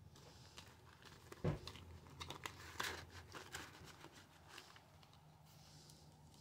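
Faint rustling and crinkling of paper banknotes and envelopes being handled, with scattered small clicks and one soft knock about a second and a half in.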